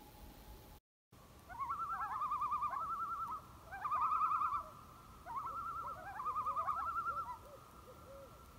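Common loon giving its tremolo call: four bouts of rapid, wavering, laughing notes.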